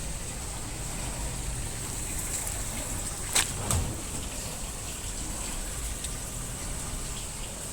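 Muji M-W42D 4.2 kg fully automatic washing machine with water running steadily through it, a constant rush of water. Two sharp clicks come about three and a half seconds in.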